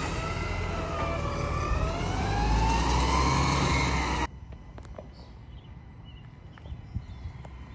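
Natural-gas garbage truck driving away, its engine running with a whine that rises in pitch as it speeds up. The sound cuts off suddenly about four seconds in, leaving a faint outdoor background with a few light clicks.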